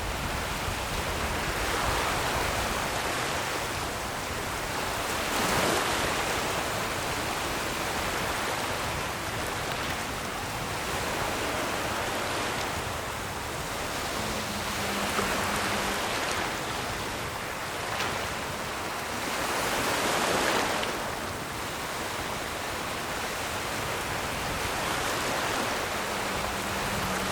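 Ocean surf: a steady rush of waves that swells every few seconds as each wave breaks and washes in. A brief low hum sounds twice, about halfway through and near the end.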